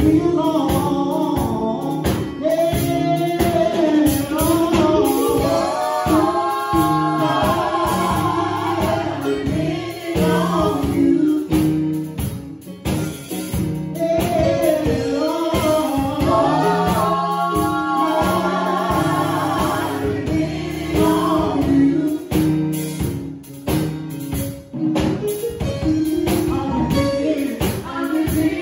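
Gospel song: sung vocals with held, wavering notes over a band with a steady percussive beat.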